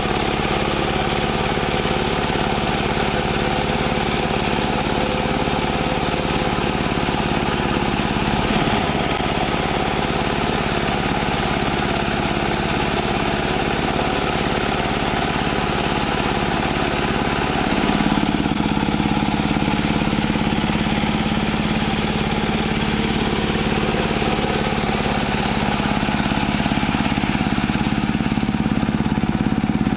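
Single-cylinder diesel engine of a two-wheel hand tractor running steadily under load as it drives a rotary tiller through wet paddy mud. It gets a little louder about two-thirds of the way in.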